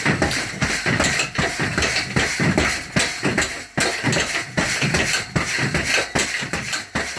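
Rapid run of knocks and thumps, several a second, from repeated short strikes with a heavy training bar.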